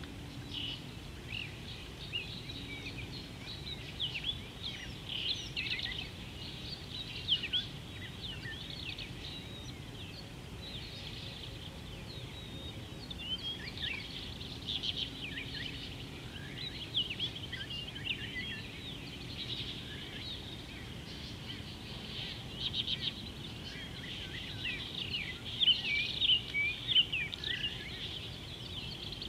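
Many small birds chirping and trilling in quick, high notes, busiest near the end, over a low, steady background noise.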